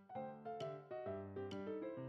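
Background music: a soft piano-like keyboard melody of single struck notes, each fading away before the next.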